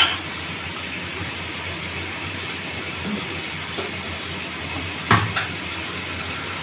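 Chicken and vegetables sizzling steadily in a hot pan, with a short clatter about five seconds in.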